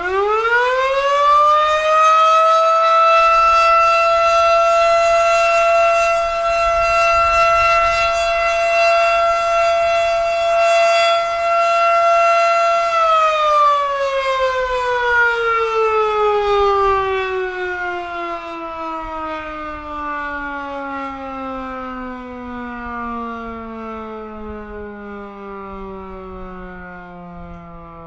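Federal Signal Model 7 mechanical fire siren sounding an attack signal: it rises in pitch over the first second or two, holds a steady wailing tone for about eleven seconds, then is shut off and winds down in a long, slow falling glide as it coasts to a stop.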